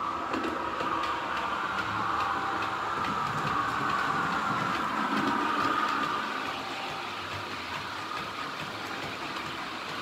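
H0-scale model train passing: a Roco SNCF BB 7200 model locomotive, fitted with a ZIMO sound decoder, hauling Talgo coaches. It runs with a high steady whine and many small clicks from the wheels on the track, loudest about five seconds in, then fading a little.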